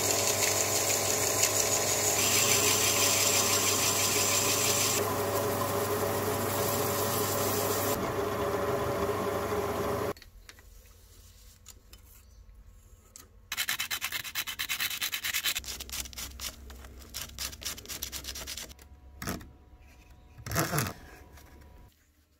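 Lathe running with a carbide-insert tool cutting into a spinning workpiece: a dense, steady scraping under the motor's hum, with abrupt cuts between passes. About halfway through, the lathe sound stops, leaving quieter handling and rubbing, with two short scrapes near the end.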